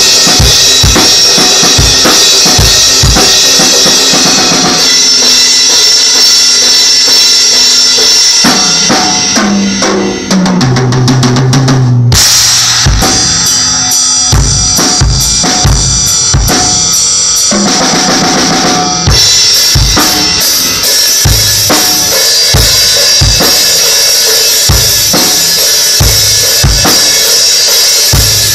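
Tama acoustic drum kit played loudly: a steady beat on bass drum and snare under ringing cymbals. Around ten seconds in, a fill runs down the toms, ending in a cymbal crash at about twelve seconds, and there is another tom fill near eighteen seconds.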